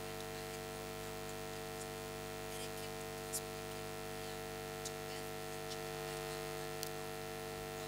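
Steady electrical mains hum made of several even tones, with a few faint ticks.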